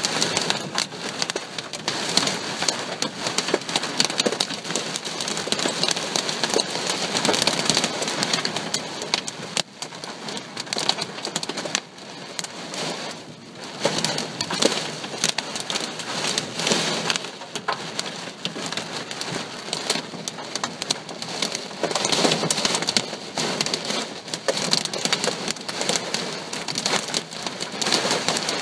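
Heavy thunderstorm rain pouring down: a dense patter of drops striking surfaces, swelling and easing, with brief lulls about a third and nearly half of the way through.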